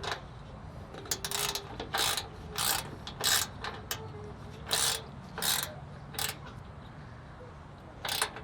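Socket ratchet wrench tightening the light bar's top mount bolt: short rasping runs of ratchet clicks on each back-swing, repeated in an uneven rhythm about every half second with a few pauses.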